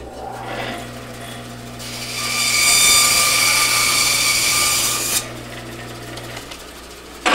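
Electric power tool motor running, starting at the outset and stopping about six seconds in, with a much louder hissing whine from about two seconds in that drops away after five.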